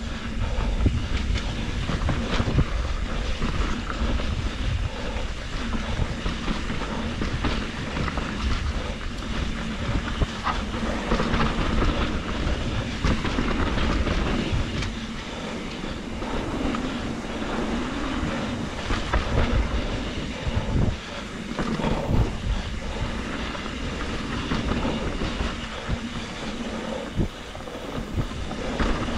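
2021 Trek Slash 7 full-suspension mountain bike riding fast down a dirt flow trail. Tyres rumble steadily over the dirt, with many small clicks and rattles from the bike.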